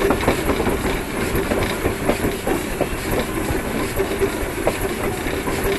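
Steam locomotive rolling slowly along the rails, heard from on board: a steady rumble with irregular clanks and clatter of the wheels and running gear, and a faint hiss of steam.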